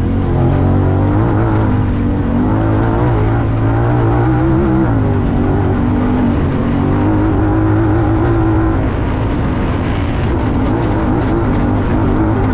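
Honda Talon 1000R side-by-side's parallel-twin engine running hard at race speed, heard from on board, its note wavering up and down with the throttle over a steady rush of wind and dirt noise.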